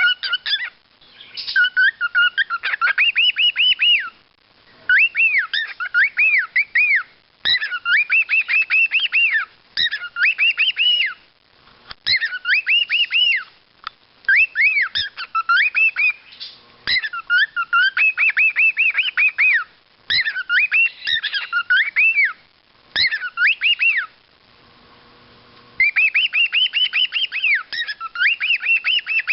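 Male cockatiel singing to himself: repeated whistled phrases of quick rising-and-falling notes, in runs of one to three seconds with short pauses between.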